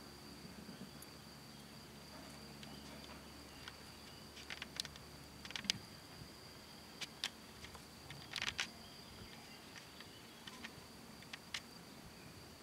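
Faint outdoor ambience: a steady high-pitched insect trill, with scattered short sharp clicks, mostly from about four to nine seconds in.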